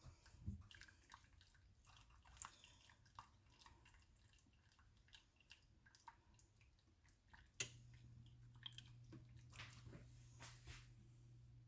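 Faint soft squishing and small clicks of shredded cheese being stirred into a thickening sauce in a pot. About seven and a half seconds in, a low steady hum starts after a click.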